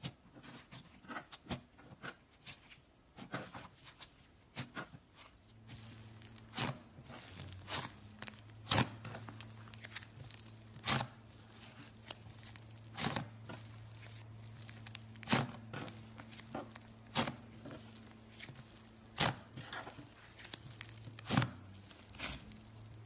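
Hands squishing and pressing slime, making sticky crackles and small air-bubble pops. At first these come in quick runs, then from about six seconds in a louder pop comes about every two seconds.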